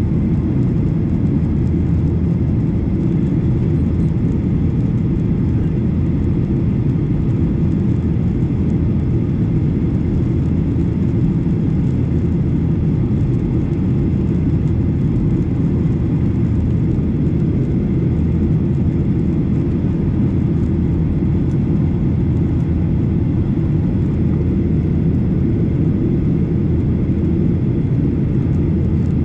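Boeing 737 jet engines and airflow making a steady low rumble, with no change in pitch or level.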